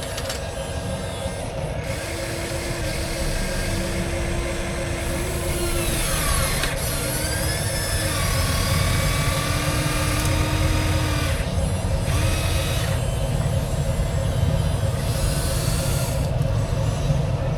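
Small electric motors of radio-controlled construction models running, a steady hum under whines that rise and fall in pitch and start and stop as the machines move.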